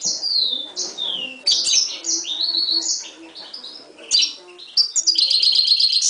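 Caged Himalayan goldfinch × canary mule singing: a string of quick whistled notes and falling slurs, ending in a fast, even trill in the last second.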